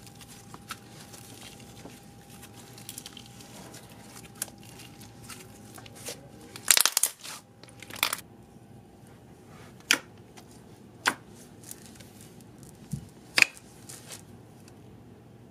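Hands working slime: a thick white speckled slime stretched and squeezed, then a dark slime poked in a plastic tub, giving soft crackling with sharp pops and clicks. The loudest is a quick run of pops about seven seconds in, followed by single pops a second or two apart.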